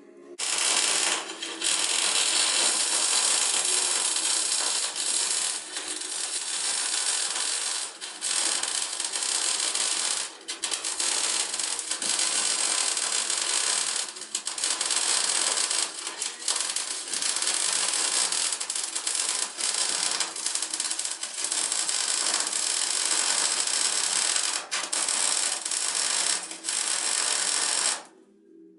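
MIG welder welding steel floor frames: the arc gives a dense, steady hiss, broken by a number of short pauses as the torch stops and restarts, and stops about a second before the end.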